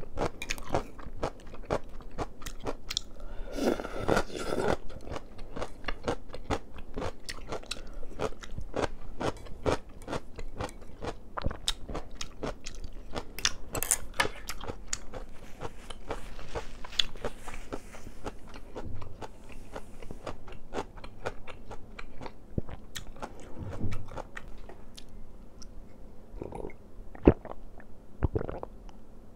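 A person chewing and crunching food close to the microphone, in quick, irregular bites.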